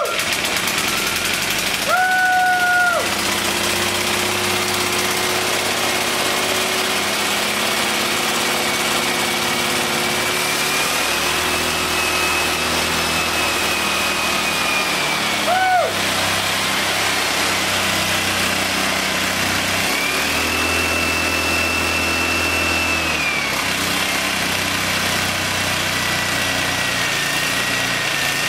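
Suffolk Super Colt small engine running steadily on the choke-off setting after starting, its speed rising and falling a few times as the throttle is adjusted, with a clear speed-up about two-thirds of the way in.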